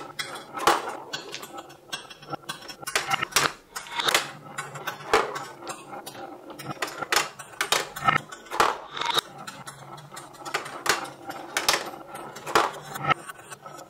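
Toy clatter: clear plastic blocks clicking into a frame and small balls knocking and rolling down plastic and wooden marble-run tracks, an uneven run of sharp clicks and knocks several times a second.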